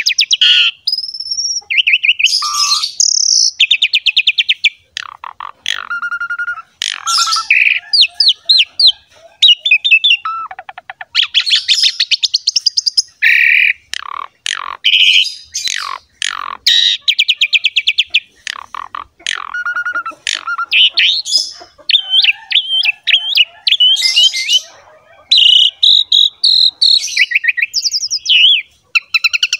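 Asian pied starling (jalak suren) singing a long, varied song of whistles, harsh chattering notes and rapid rattling trills, with short breaks between phrases.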